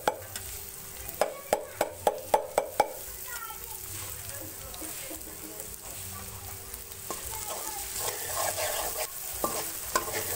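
Steel ladle stirring in a metal kadai as onions, ginger-garlic paste and green chillies fry in oil. About a second in, the ladle knocks the pan in a quick run of about six sharp clinks; the frying sizzle then runs on and grows louder in the last third, with more ladle knocks near the end.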